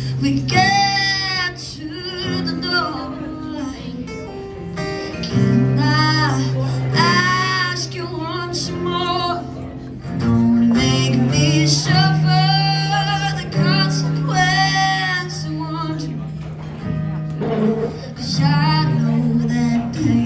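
A woman singing live to her own acoustic guitar. She holds long notes with vibrato over a steady guitar accompaniment.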